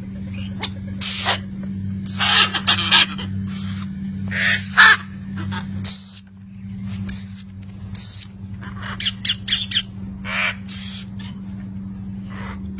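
Parrots squawking: a rapid series of short, loud, harsh calls over a steady low hum.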